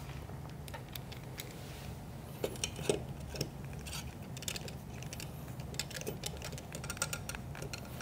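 Hand screwdriver driving and seating screws in a coffee grinder's metal base: a scatter of small irregular metallic clicks and ticks, a few sharper ones about two and a half to three and a half seconds in, over a low steady hum.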